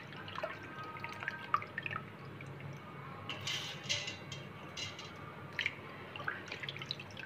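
Soaked raw rice being dropped by hand into the stainless-steel drum of a wet grinder: scattered small ticks and drips of wet grains and water on the metal, with a louder wet rustle about three and a half seconds in.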